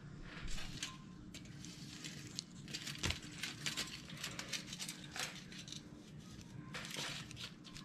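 A small kitchen knife cutting butter and tapping and scraping on the countertop, with the light crinkle of aluminium foil as pats of butter are set on it. The sound is scattered soft clicks and short rustles at irregular moments.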